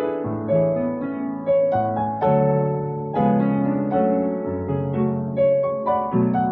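Solo piano playing a melody over chords, new notes and chords struck about once a second and left to ring.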